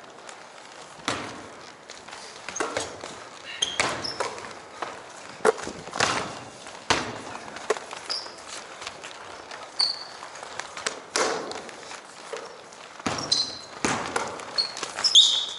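Pickup basketball on a hardwood court: the ball bouncing, players' footfalls and irregular thuds, with short high sneaker squeaks on the wooden floor.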